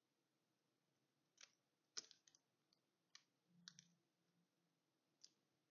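About half a dozen faint, irregularly spaced snips of small scissors cutting out a small piece of fusible-backed fabric.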